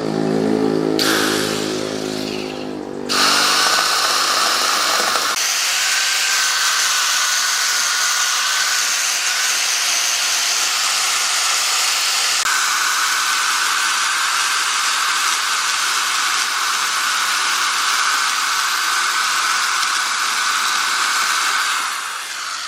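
Power tools working wood. A motor runs with its pitch falling over the first few seconds, then a loud, high-pitched tool with a steady whine starts suddenly and runs on, changing abruptly a couple of times.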